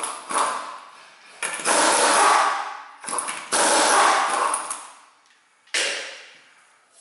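Impact wrench spinning lug nuts off a car's front wheel in bursts of about a second each, followed by a single sudden knock that fades out near the end.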